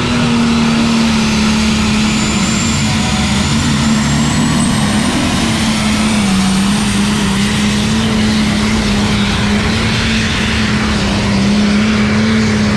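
Diesel super stock pulling tractor's engine running flat out under heavy load as it drags a weight-transfer sled, a loud steady drone that sags slightly in pitch midway and climbs again. A thin high whine rises in pitch over the first five seconds.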